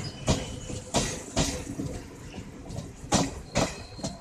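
Passenger coach wheels clacking over rail joints as the train's last coaches roll slowly past: sharp clacks in pairs, one per bogie, a second or so apart, over a steady rolling rumble.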